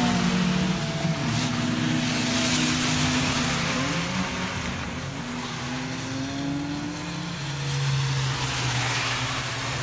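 Small Daihatsu kei race car at full throttle, its engine note climbing and dropping back several times as it shifts up. The tyres hiss as they throw spray through standing water on the flooded track, loudest about two seconds in and again near the end.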